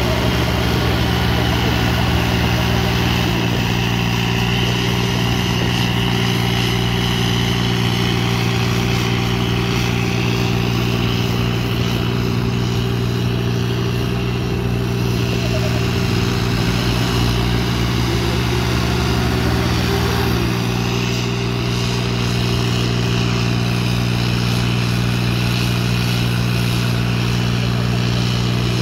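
Diesel tractor engines running steadily under heavy load, with a low, even drone as two tractors hitched together pull against each other in a tug-of-war.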